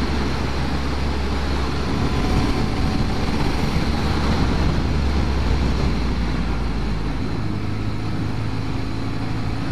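Sport motorcycle engine running at steady road speed under a rush of wind over the microphone, its low engine note stepping up in pitch about seven seconds in.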